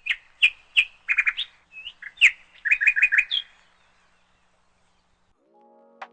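A bird chirping: a quick series of short, sharp notes for about three and a half seconds, then stopping.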